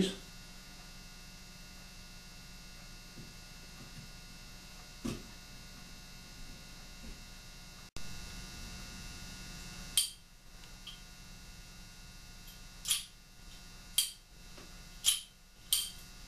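Steady low hum, then from about ten seconds in a series of about five sharp metallic clicks, a second or so apart, as the lockwork of an Uberti Colt Walker revolver is worked by hand.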